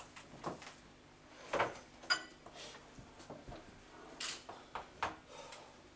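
Small handling sounds at a table: papers being passed over and rustling, a few light knocks, and a brief ringing clink about two seconds in.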